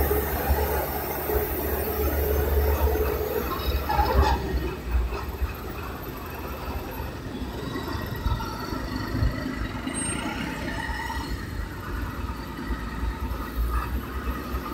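A bus driving off a small vehicle ferry: a heavy engine rumble with a steady whine for the first few seconds, a single clank about four seconds in, then quieter running.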